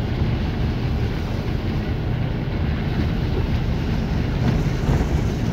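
Steady low rumble of a moving vehicle, heard from inside it, with wind buffeting the microphone.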